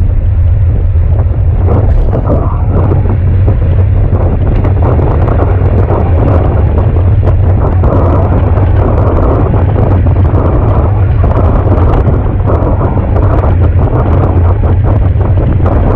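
Wind buffeting the microphone of a handlebar-mounted camera on a road bike travelling at about 50 km/h: a loud, steady low rumble, with road and tyre hiss above it.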